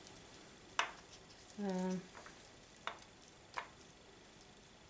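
Old orchid bark potting mix crackling and rustling as it is pulled apart by hand from the roots, with three sharp clicks of bark pieces. A short hummed voice sound comes about a third of the way through.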